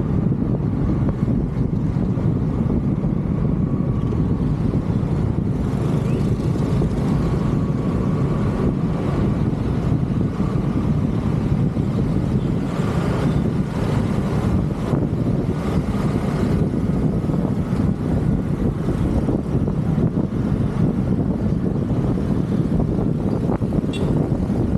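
Steady rumble of wind buffeting the microphone over a scooter's engine running at riding speed, with surrounding traffic.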